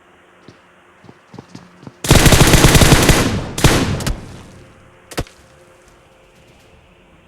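A rapid burst of sharp bangs like automatic gunfire, lasting about a second and a half, then a shorter second burst and a single crack a second later.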